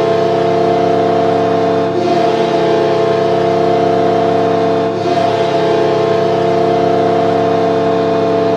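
Hockey arena goal horn blaring one long, steady chord of several tones, dipping slightly twice.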